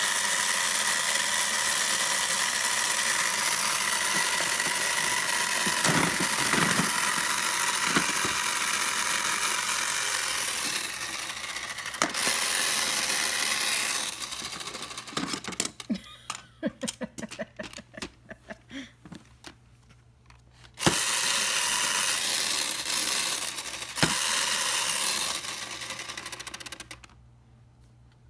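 Toy miter saw on a children's workbench running with a steady mechanical whir as its handle is held down. It runs in long stretches, breaks midway into short stuttering bursts as the handle is pressed on and off, and stops near the end.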